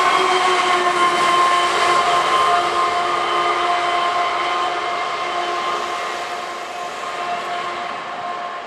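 A long freight train with a Canadian Pacific AC4400CW remote diesel locomotive on the rear going past and pulling away. Its running noise and a steady multi-pitched whine slowly fade as it recedes.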